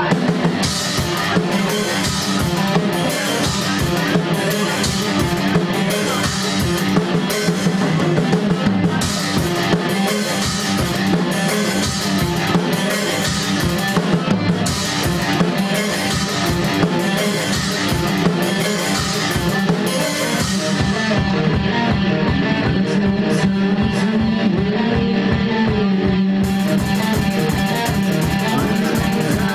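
Instrumental rock played live by guitar and drum kit, no vocals. The drums drive on with steady cymbal crashes until about two-thirds through, then thin out to sparse hits with the cymbals silent for a few seconds, before a cymbal wash comes back near the end over the ringing guitar.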